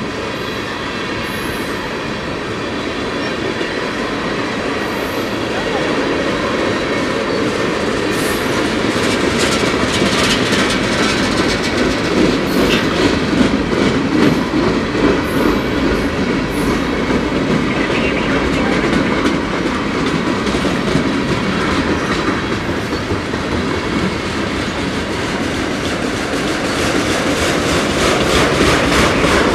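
Freight cars of a long freight train rolling past close by: tank cars, boxcars and autoracks. There is a steady rumble of steel wheels on rail, with repeated clicks as the wheels cross rail joints and a thin wheel squeal at times.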